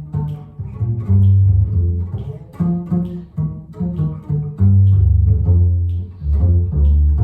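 Upright double bass played pizzicato in a jazz line, a steady run of plucked low notes.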